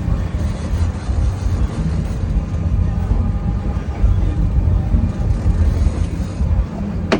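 Steady low rumble of a charter fishing boat's engine running under way, with a single sharp click near the end.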